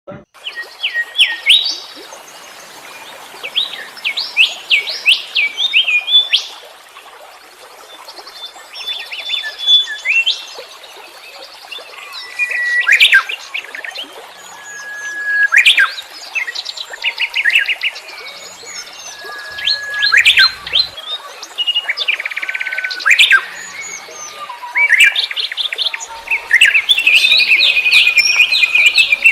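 Wild songbirds chirping and singing: bursts of quick chirps, sharp up-and-down whistled sweeps and rattling trills, over a steady background hiss. Near the end one bird keeps up a fast, continuous trill.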